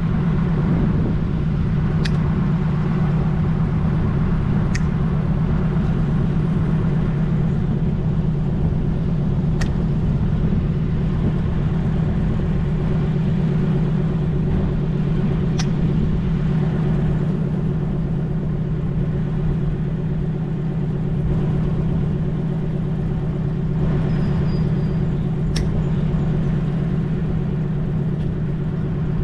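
A steady, loud, low drone, like a motor running, with a few sharp clicks spread through it.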